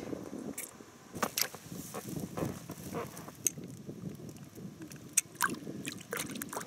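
Scattered sharp clicks and knocks of hands handling a small fish and fishing tackle on an inflatable boat, over a low rustle.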